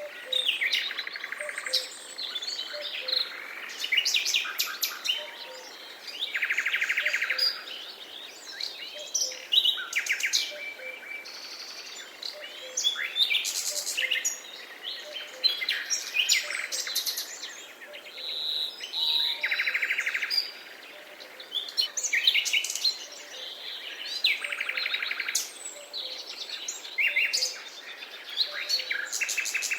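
Several wild birds singing and calling in a forest: overlapping chirps and whistled phrases, with one bird repeating a buzzy trill of about a second several times. Underneath is a faint steady hiss.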